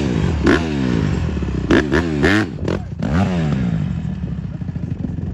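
Honda CRF150R dirt bike's single-cylinder four-stroke engine revved in several sharp throttle blips over the first three seconds, then running more steadily and lower as the bike pulls away.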